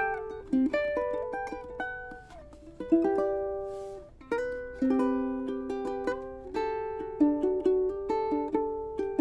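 Islander MCB-4 ukulele played solo: plucked notes and strummed chords, each ringing and fading before the next.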